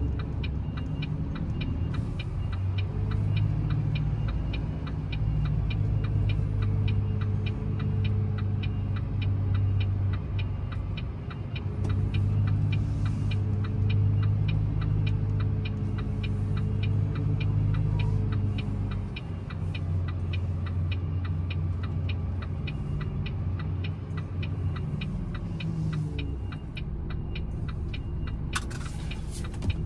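Volvo FE 320 lorry's six-cylinder diesel engine running at low revs while manoeuvring slowly, its note rising a little and easing off, with a fast, steady ticking over it.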